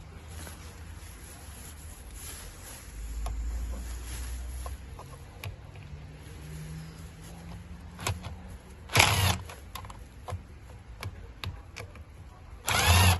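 Light clicks and handling noise from a T20 Torx driver working the screws of a cruise control switch. Two short, loud rattling bursts come about nine seconds in and again near the end.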